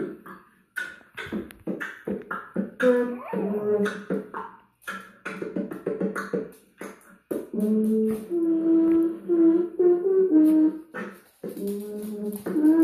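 Beatboxing into a cupped handheld microphone: quick mouth-made drum hits mixed with short hummed bass notes. From about halfway, longer held hummed notes that step up and down in pitch run between the beats.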